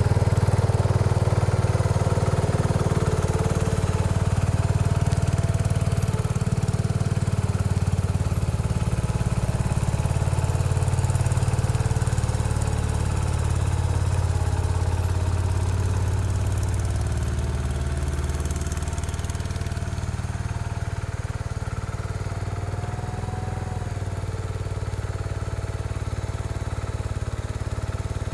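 Case 224 garden tractor's engine running steadily with its front snowthrower engaged, blowing snow. It gets gradually quieter through the second half.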